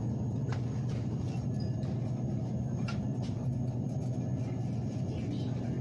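Supermarket background noise: a steady low hum with a few faint clicks.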